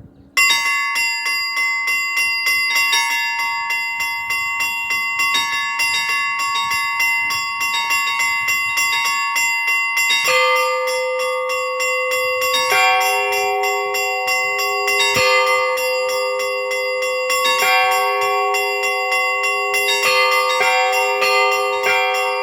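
Russian Orthodox church bells rung by a bell ringer. The small bells strike in quick, busy patterns from about half a second in, and deeper, larger bells join at about ten and again at about thirteen seconds.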